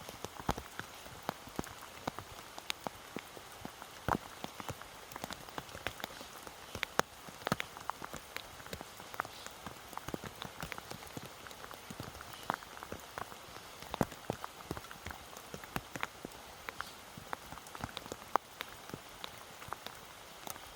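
Rain falling steadily, with many individual drops striking close by in an irregular patter over a soft hiss.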